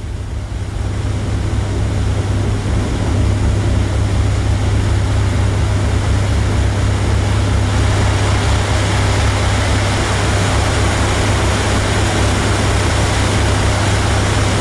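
A boat's engine running with a steady low drone under a loud, even hiss. It grows louder over the first couple of seconds, then holds.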